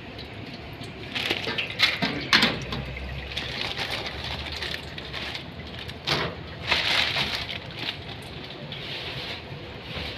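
Hot oil sizzling steadily in a commercial deep fryer, with a few sharp clinks and rattles as frozen french fries are dropped into the wire fry basket, mostly in the first couple of seconds and again about six seconds in.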